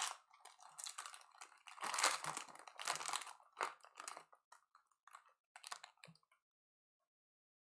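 Hands handling trading cards and their packaging: irregular light clicks and rustling, with louder rustles about two and three seconds in, stopping abruptly about six seconds in.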